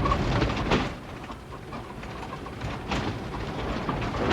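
Low steady rumble of a car moving through snow, heard inside the cabin, with a baby's short cooing sounds and a couple of brief sharp knocks.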